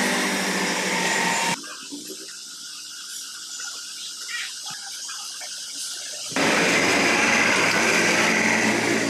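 Steady whirring noise of a running motor-driven machine. It cuts off suddenly about a second and a half in and comes back just as suddenly near the two-thirds mark. In between there are only faint small clicks.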